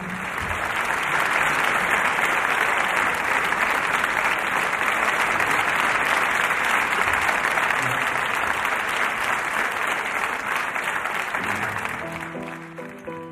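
Theatre audience applauding, the clapping swelling over the first second, holding steady and dying away near the end.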